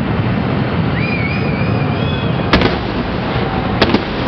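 Aerial firework shells bursting: two sharp bangs a little over a second apart, the second near the end. Under them runs a steady low rumble with faint wavering whistles.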